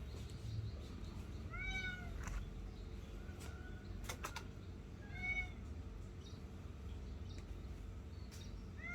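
A cat meowing: two short, high-pitched meows about three and a half seconds apart, with a couple of sharp clicks between them.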